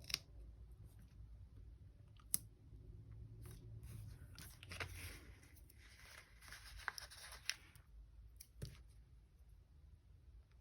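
Faint handling of paper and sticker sheets: soft rustling and peeling in the middle, with a few light taps and clicks.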